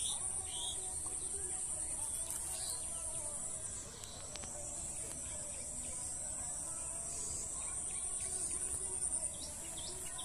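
Insects trilling steadily at a high pitch, a fine pulsing buzz that dips briefly partway through and eases off near the end, with a few short bird chirps.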